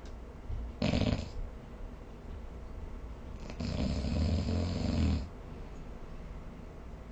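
Snoring in sleep: a short snore about a second in, then a longer, louder snore of about a second and a half near the middle, with a low buzz under a breathy hiss.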